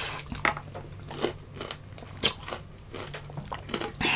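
Mouth chewing crispy bagnet (deep-fried pork belly), the crackling skin giving a series of sharp, irregular crunches.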